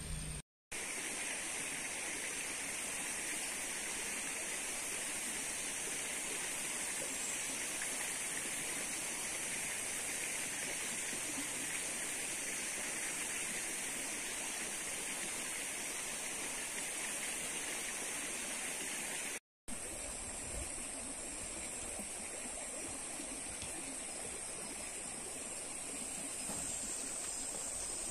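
Steady outdoor background noise: an even hiss with a high, steady ringing above it. The sound drops out completely twice, briefly: about half a second in and about two-thirds of the way through.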